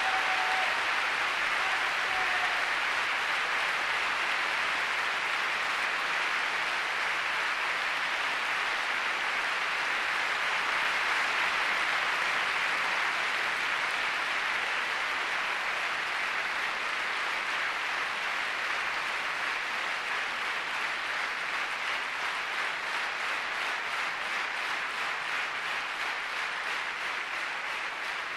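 Large concert audience applauding, with a wavering whistle over it in the first couple of seconds. The applause eases off slowly and in the second half falls into a more even, rhythmic clapping.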